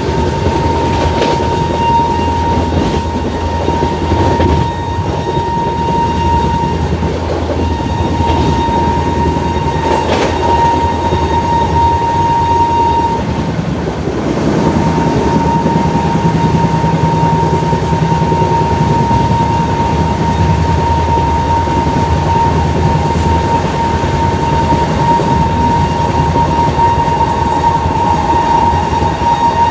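WAP-7 electric locomotive's horn held in one continuous shrill note, broken once for about a second near the middle. Under it the train rumbles past on the track.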